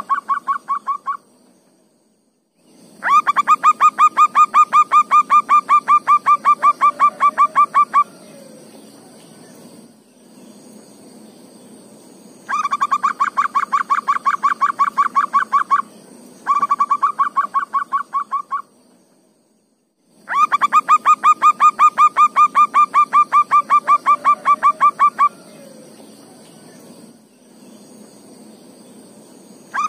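Zebra doves (perkutut) calling in long runs of rapid, evenly spaced cooing notes, about ten a second. Each run lasts two to five seconds, with short pauses between runs.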